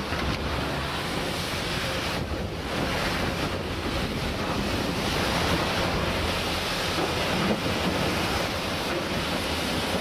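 Steady rushing and splashing of water jets pouring into a snow-melting channel, with wind buffeting the microphone.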